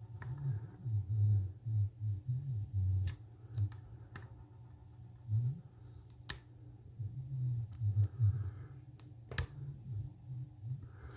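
A 7-pin lock being picked: a small pick working the pins gives scattered sharp clicks at irregular intervals over a low rumble of handling.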